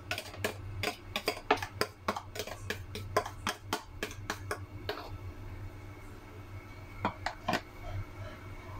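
Hot oil crackling and popping in a frying pan as beaten eggs are poured in, with quick irregular pops that thin out to a few after about five seconds, over a steady low hum.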